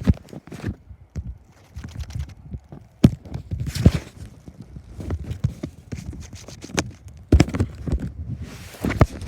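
Footsteps in snow with irregular thumps and handling knocks, and gusts of blizzard wind buffeting the microphone in swells of hiss.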